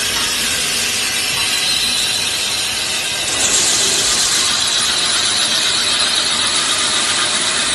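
Automatic multi-spindle drilling and tapping machine running, with steady machining noise, a hiss and a high whine. The hiss grows louder for about a second around three and a half seconds in.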